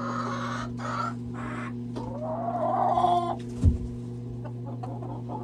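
Hens clucking, with one longer rising call about two seconds in, over a steady low hum. A single dull thump comes a little past halfway.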